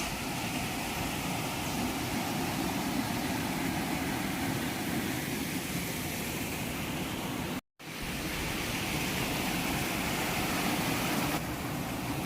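Waterfall: falling water rushing steadily, broken once by a brief total dropout about eight seconds in.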